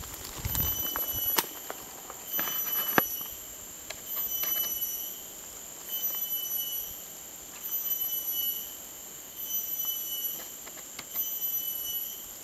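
Forest insects calling: a steady high-pitched drone under a pulsing call that swells and fades just under every two seconds. A few sharp knocks and a soft thump of handling come in the first three seconds.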